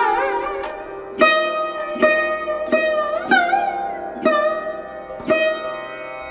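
Instrumental music led by a plucked string instrument playing a slow melody, one note about every second, the notes bending and sliding in pitch.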